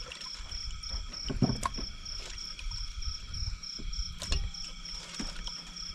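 Night insects chirping: a high, evenly pulsing chirp about five times a second over steadier high trills from others. Two sharp clicks cut in, near the end of the second second and past the middle.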